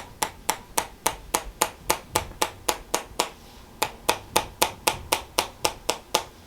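Chiropractic tapping over the shoulder joint: quick, even taps at about four a second, stopping briefly about three seconds in and then resuming. The tapping is meant to unlock and loosen the joint before it is adjusted.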